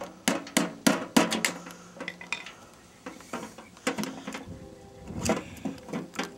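Sheet-metal furnace blower housing clanking and knocking as it is handled and tilted on concrete: a quick run of sharp metallic knocks in the first second and a half, then scattered clatter with brief ringing.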